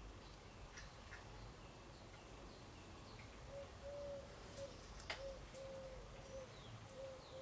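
Faint outdoor birdsong: small scattered chirps throughout and, from about halfway in, a dove cooing in a repeated low phrase. A single sharp click sounds a little after five seconds.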